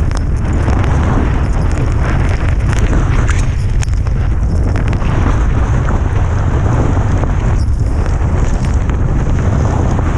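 Wind buffeting the microphone: a loud, steady low rumble with a hiss over it, in blizzard conditions on a ski run.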